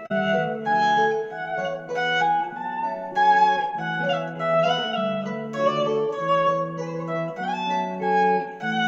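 Music played on a plucked string instrument, with chords and melody notes changing about once a second and some notes sliding in pitch.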